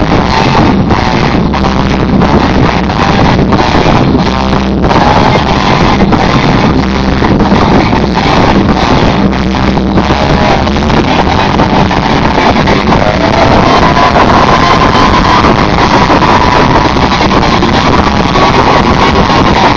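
Live rock band with electric guitars and drums, recorded close and overloaded so the sound is distorted. A fast, steady drumbeat drives the first half, and a long held high note comes in about two-thirds through.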